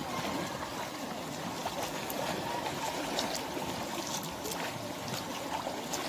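Water sloshing and splashing as children wade and swim in a pool, over a steady wash of noise, with a few short splashes and faint children's voices.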